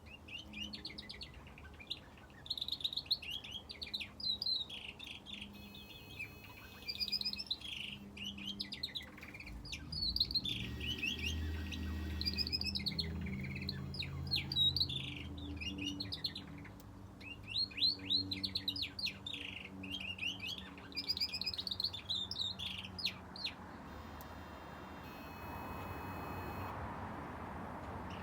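Small aviary finches chirping in repeated quick, bright phrases, one bout after another, with brief pauses between. A soft rushing hiss comes in near the end as the chirping stops.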